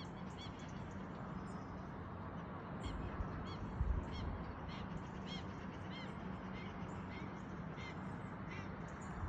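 A bird calling repeatedly, short arched notes about every half second to second, over a steady low rumble.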